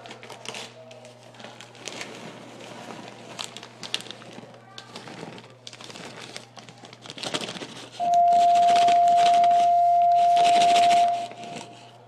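Plastic zip-top bag of cornstarch crinkling and rustling as it is handled. About eight seconds in, a loud steady beep at one pitch comes in and holds for about three seconds while the rustling goes on.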